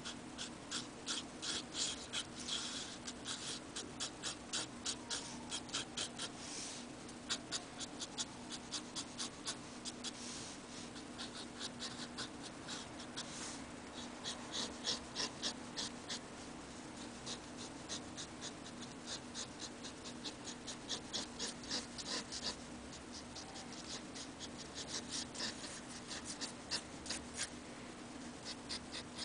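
Steel nib of a vintage Onoto fountain pen scratching across card in quick hatching strokes, several a second, in runs with short pauses, over a steady low hum.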